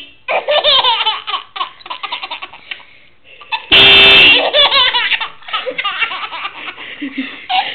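A baby laughing in long giggling peals. Partway through, a little under four seconds in, a car horn gives one short loud honk, and the baby bursts out laughing again right after it.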